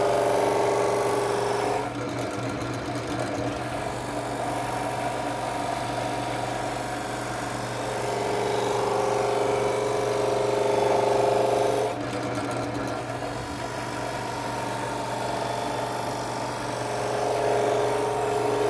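Drill press running a buffing wheel against a resonator guitar body, buffing the finish with polishing compound. A steady motor hum and whirr whose tone grows louder and fades several times, dropping about two seconds in and again about twelve seconds in.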